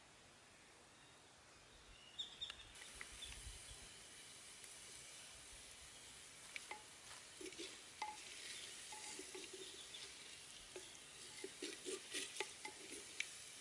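Wooden spatula stirring simmering soup in a clay pot, with quiet irregular knocks and bubbling, and small crackles from the wood fire beneath. The stirring picks up after a nearly silent first couple of seconds and gets busier toward the end.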